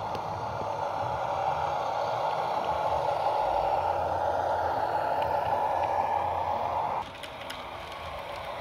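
Sound decoder of a Rivarossi ALn 668 diesel railcar model playing its diesel engine running sound through the model's small speaker as the railcar moves. The sound drops away abruptly about seven seconds in, leaving a quieter background with faint clicks.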